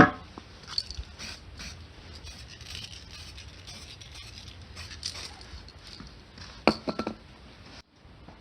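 Scattered light clicks, taps and scrapes of small objects being handled at a workbench, with a sharp knock at the start and a few louder clicks about seven seconds in.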